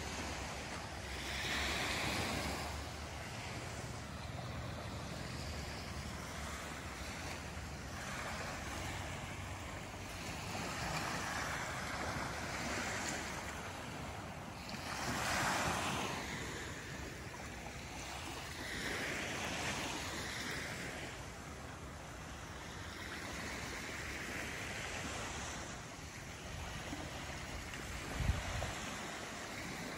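Small sea waves washing onto a sand beach, swelling and fading every few seconds, with a brief low thump near the end.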